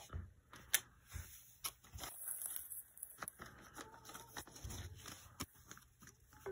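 Paper banknotes and envelopes rustling as they are handled, with a scatter of sharp clicks and taps, the loudest about three quarters of a second in.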